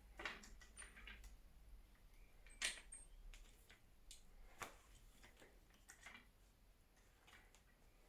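Faint scattered clicks and taps of a takedown bow and its new string being handled as the string's large loop is slid down the limb. The two sharpest taps come about two and a half and four and a half seconds in.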